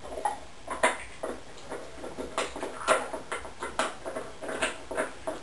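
Newborn golden retriever puppies making short squeaks and snuffles in their sleep, over and over at irregular intervals.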